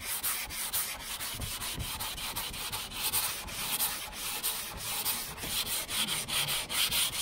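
Sandpaper on a hand sanding block rubbed back and forth over a primed truck door in quick, even strokes: block sanding the primer before paint.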